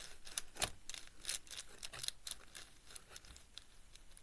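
Adhesive tape being picked and peeled off plastic puzzle-cube pieces: a quick run of small crackles and clicks, thickest in the first couple of seconds, then thinning out.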